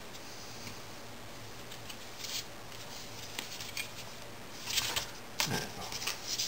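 Soft scrapes and light clicks of a thin spacebar wire being worked against and lifted out of an aluminium bending jig. A few faint ones come early, and a louder cluster of scrapes about five seconds in.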